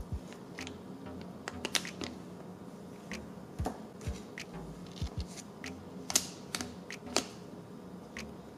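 A printed plastic blind-bag pouch and a small plastic cat figurine being handled between the fingers: irregular crinkles and sharp clicks, the loudest about six seconds in.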